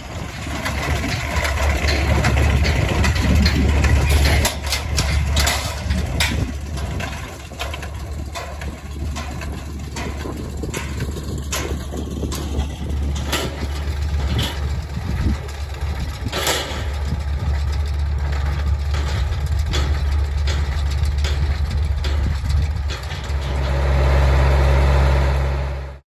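Diesel engine of an International 885XL tractor running steadily while it works an International 445 small-bale baler, with sharp clacks from the baler now and then. Near the end the engine note becomes louder and steadier.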